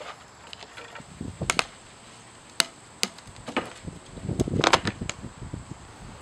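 Scattered sharp clicks and light knocks from handling work on a plywood panel, with a quick cluster of clicks about four and a half seconds in.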